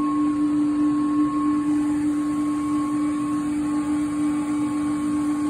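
Electric water pumps of a booster pump set running, a steady machine hum with a strong, constant tone.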